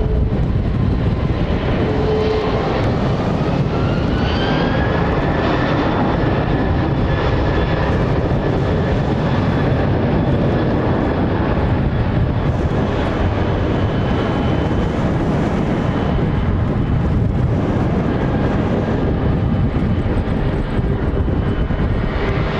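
Jet engines of an MD-10-30F, three General Electric CF6-50 turbofans, spooling up for the takeoff run. A whine rises over about four seconds and then holds steady over a loud, even jet rumble.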